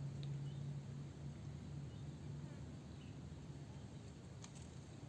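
Faint outdoor ambience: a few short, high chirps of small birds over a steady low hum, with a single sharp click near the end.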